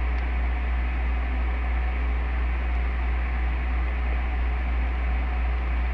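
Steady low hum with a constant hiss: the background noise floor of the recording, with no other sound over it.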